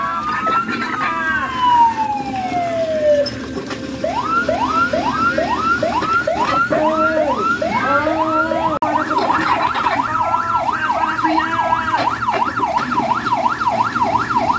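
Electronic emergency-vehicle siren cycling through its tones: a slow wail that rises and falls, then from about four seconds in quick repeated rising sweeps, and from about nine seconds in a fast up-and-down yelp of about three cycles a second.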